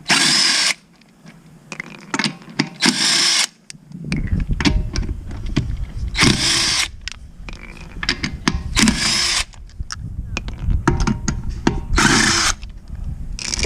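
Bauer 20V Hypermax 1/2-inch cordless impact wrench hammering in five short bursts of about half a second to a second each, loosening a car's lug nuts, with clicks between the bursts. The owner finds it short on oomph for the job.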